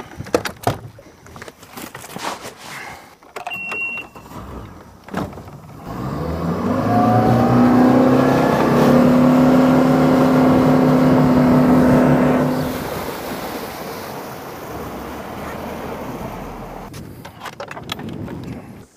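Bass boat's outboard motor revving up about six seconds in and running at speed with a steady pitch, then backing off about thirteen seconds in to a rush of wind and water. Clicks and knocks of gear being handled come before it starts.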